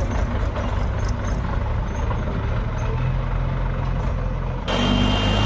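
Heavy diesel engine running steadily with a low hum under a rushing noise; the sound changes abruptly near the end.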